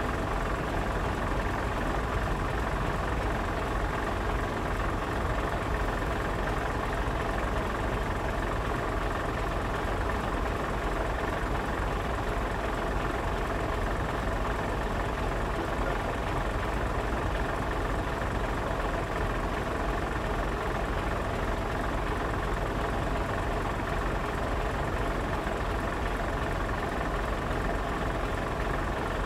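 Steady mechanical hum, engine-like, that keeps the same pitch and level throughout with no separate knocks or revs.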